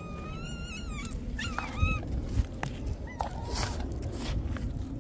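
Stray cats meowing: a long wavering meow in the first second, then shorter meows. About two seconds in come two sharp knocks as clay food bowls are set down on a stone ledge.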